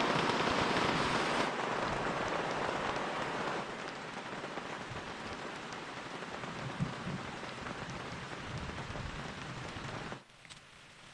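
Steady rain falling, an even hiss that drops in loudness in steps and falls away sharply about ten seconds in.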